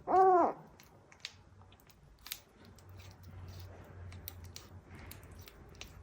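Kitten giving one short meow, rising then falling in pitch, followed by a few faint scattered clicks.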